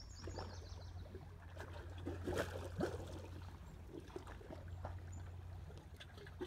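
Small lake waves lapping and splashing against a rocky shoreline ledge, with a couple of louder splashes between two and three seconds in, over a steady low rumble.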